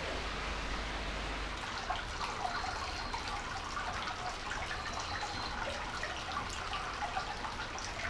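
Running water, a steady rush that turns about a second and a half in to lighter trickling with many small drips and splashes.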